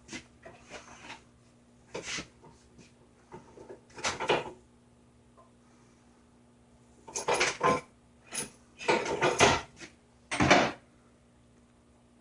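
Metal tools and supercharger parts clattering and clinking as they are handled on a workbench, in irregular bursts of knocks, over a faint steady hum.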